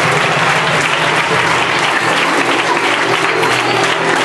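A large audience of schoolchildren clapping, a dense, steady applause.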